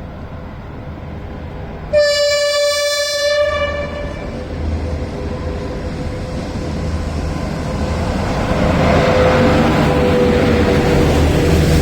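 SS8 electric locomotive sounding its horn once, a loud blast of about a second and a half about two seconds in, then the train's rumble growing louder as it approaches.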